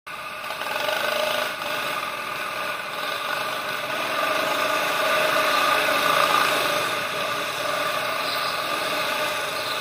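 Racing go-karts running, a steady drone that swells a little near the middle as a kart drives past.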